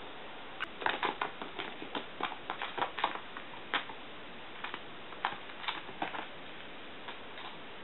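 Kitten pouncing and batting a small ball across tatami mats: a quick irregular run of light taps and clicks, thinning out after about four seconds.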